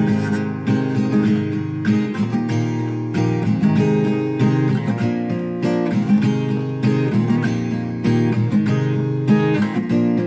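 Acoustic guitar strumming chords in a steady rhythm.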